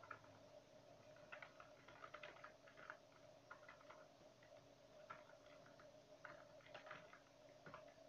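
Computer keyboard keys tapped in faint, irregular clicks as a few words are typed, over a faint steady hum.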